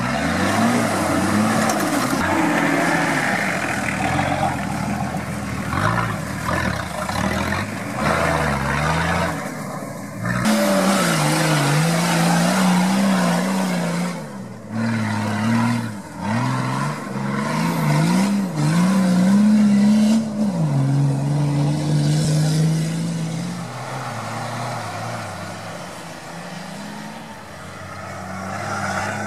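Nissan Patrol GR off-road engines revving up and down under load as the 4x4s crawl and climb through mud and ruts. The sound comes in several clips that cut abruptly from one to the next.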